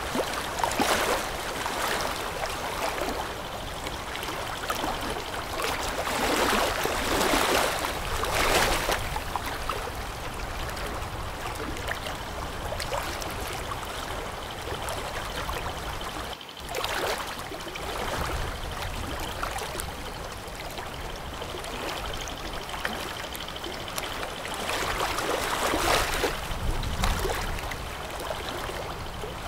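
Rushing, splashing water that swells louder and fades back several times, with a brief dropout about halfway through.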